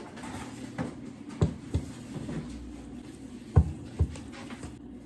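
Thick brownie batter being mixed by hand in a bowl: a handful of short, dull knocks of the utensil against the bowl, the loudest about three and a half seconds in, over a steady low hum.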